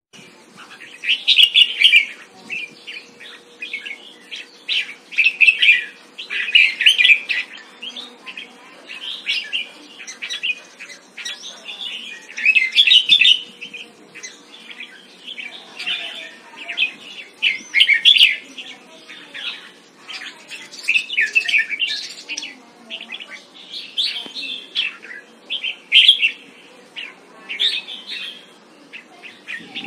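Red-whiskered bulbul singing: short warbled phrases repeated every second or two, with brief gaps between them.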